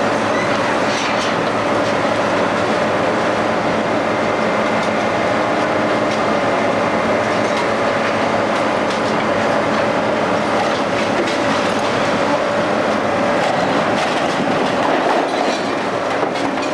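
Scrapyard crane running steadily under load, a constant mechanical noise with a steady mid-pitched tone and a few light metal clanks as it handles the old truck's body.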